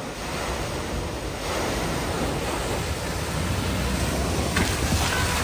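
A car driving through deep flood water across a ford, its bow wave and wheels throwing up a continuous rushing splash of spray that grows louder as it approaches.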